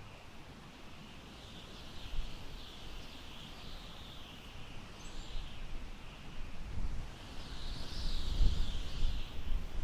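Wind gusting through tall grass: a soft rustling hiss that swells and fades, with low rumbling wind buffeting on the microphone that grows stronger in the last few seconds.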